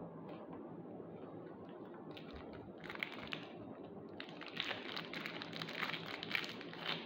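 Cigars being sorted through by hand: a rapid patter of small clicks and crinkles, growing busier from about four seconds in.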